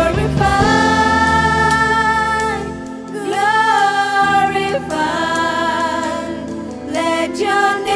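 Christian worship song: a voice holding long, wavering sung notes over sustained instrumental backing, with the deep bass dropping out about three seconds in.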